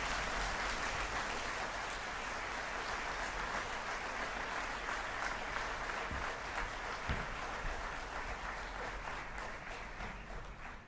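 Audience applauding, a dense patter of many hands clapping that slowly thins and fades away near the end.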